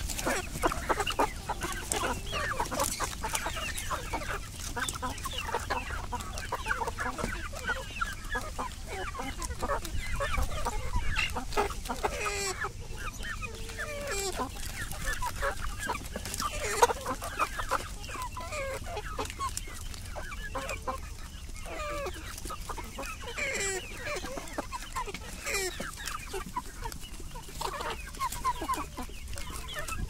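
A flock of country chickens clucking and chattering continuously as they crowd in to feed, with many short sharp taps of beaks pecking at a slab of oil cake pressed against the wire mesh.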